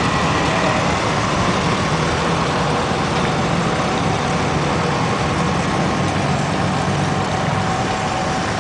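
Steady, loud engine noise of motor vehicles running, with a low hum that holds even throughout.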